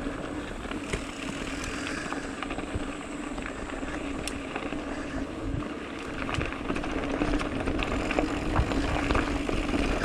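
Camera drone hovering, its propellers giving a steady hum that grows louder in the second half.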